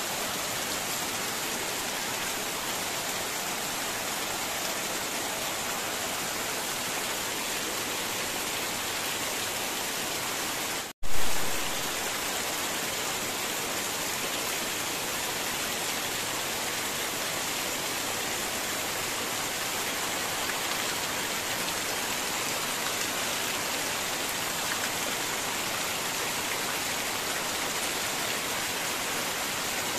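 Heavy rain falling steadily on leaves and a dirt path, with water pouring and splashing off a roof edge. About eleven seconds in the sound drops out for an instant, then comes back with a brief loud surge.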